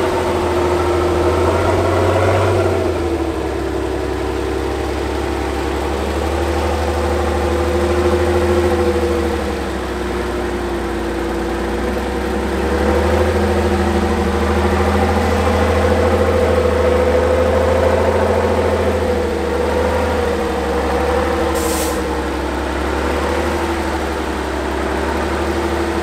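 Diesel engine of a six-wheel truck-trial truck working at low speed as the truck crawls through deep mud, its revs easing off about two seconds in and then rising and falling gently. A short hiss sounds near the end.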